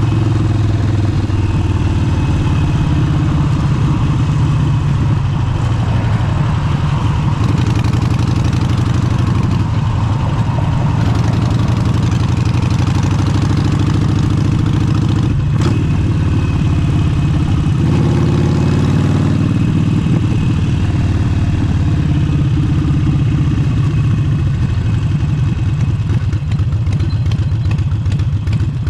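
Harley-Davidson Forty-Eight's air-cooled V-twin running through an aftermarket exhaust, a steady, deep, pulsing motorcycle engine sound.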